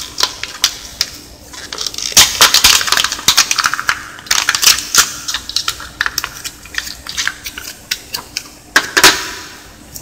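Clear plastic blister pack of a new ink cartridge crackling and crinkling in the hands as it is pried and torn open, with dense bursts of sharp clicks and a couple of louder snaps near the end.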